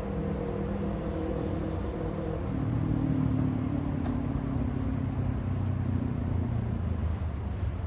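Road traffic going by on a wet street over a steady hiss: about two and a half seconds in a vehicle engine grows louder and then slowly drops in pitch as it passes.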